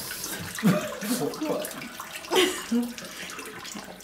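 Water running into a bathtub, a steady hiss, with a voice sounding briefly about one second and two and a half seconds in.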